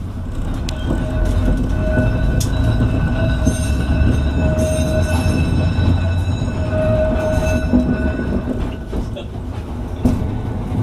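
Blackpool Railcoach 680 tram running, heard from inside the saloon: a steady low rumble of wheels on rail with a steady whine over it and a few clicks. The rumble swells about half a second in and eases near the end.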